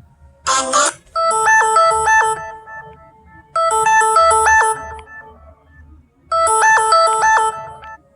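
Samsung Galaxy phone ringtone: a short electronic melody of a few quick, bright notes, played three times with a brief pause between repeats. A short burst of notes comes just before the first repeat.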